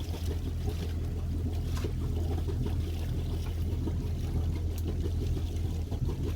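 Steady low hum of a boat's engine running while underway, with water noise around the hull.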